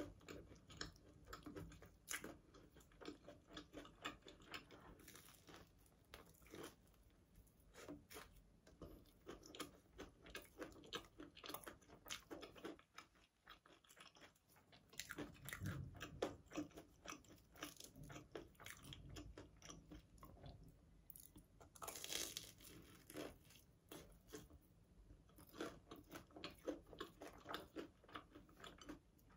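Quiet, close-up biting and chewing of a crispy sugar-coated Korean hot dog (corn dog), with many small crunches and crackles as the fried batter breaks.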